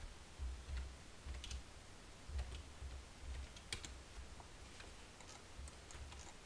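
Scattered faint clicks from a computer mouse and keyboard at a desk, over irregular dull low thumps.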